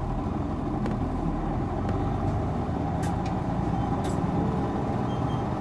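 Isuzu Erga city bus's diesel engine running steadily, heard from inside the passenger cabin, with two short sharp clicks about three and four seconds in.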